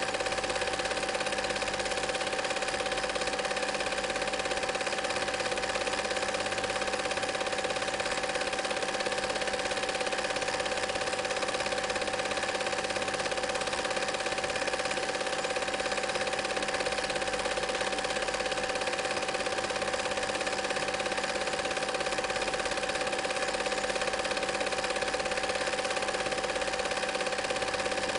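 Home-movie film projector running steadily: an even mechanical clatter of the film transport with a steady tone through it.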